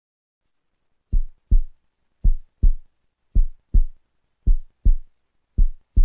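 Heartbeat sound effect: low, dull double thumps (lub-dub), five beats about a second apart, starting about a second in.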